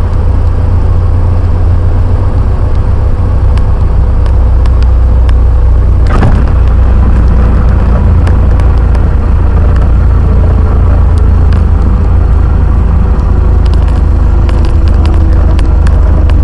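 Steady drone of a Cessna 150's four-cylinder Continental O-200 engine and propeller, heard from inside the cockpit, as the airplane lands and rolls out. A single sharp thump about six seconds in marks the wheels touching down. A faint tone slowly falls in pitch over the later seconds.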